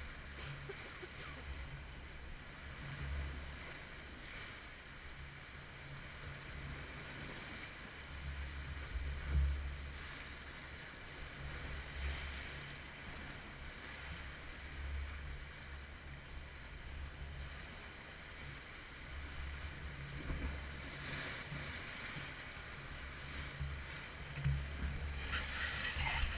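Wind buffeting a GoPro's microphone in uneven low rumbles, over sea waves washing onto the beach with a hiss that rises and falls every few seconds.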